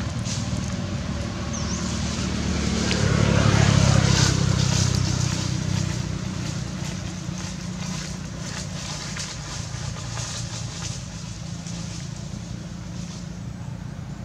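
A motor vehicle's engine running close by, growing louder until about four seconds in and then fading away.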